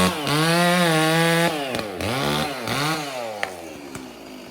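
Stihl two-stroke chainsaw revved hard in three or four bursts with short dips between them, then dropping back to idle near the end.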